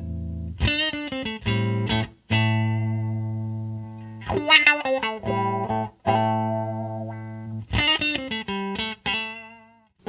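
A Stratocaster on its neck pickup, played through an Electro-Harmonix Crying Tone wah pedal into a Fender Super Reverb amp. It plays three short melodic phrases with the wah sweeping the tone, the first two each ending in a long held note.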